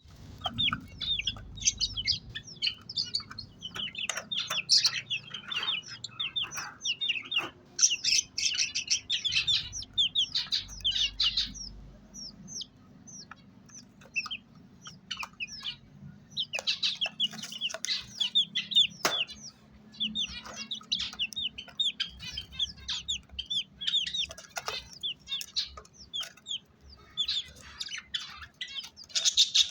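A pair of Australian parrots chattering: bouts of rapid, high chirps and warbles with short pauses between them, and a few sharp clicks.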